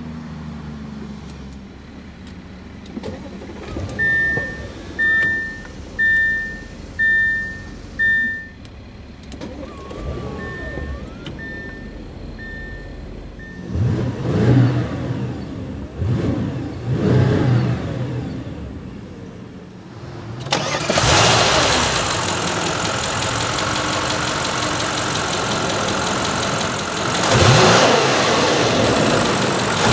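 2013 Audi S7's twin-turbo 4.0-litre V8 idling just after start-up, heard inside the cabin, while a dashboard chime beeps about once a second. The engine is then revved a few times. After that it is heard under the open hood, much louder and with a steady rush of noise, revved again near the end.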